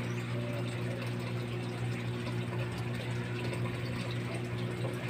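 Steady low hum of a running motor, with an even hiss over it, holding unchanged throughout.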